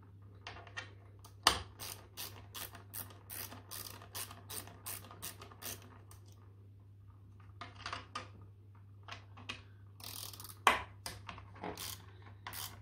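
Hand ratchet clicking in short runs, about three clicks a second, as stainless steel bolts are undone from the plastic valve body of a Kinetico water softener. Two sharper knocks stand out, about a second and a half in and near the end.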